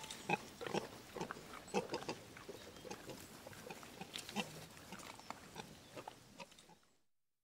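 Free-ranging domestic pigs grunting as they forage in woodland, in short, irregular grunts that fade out near the end.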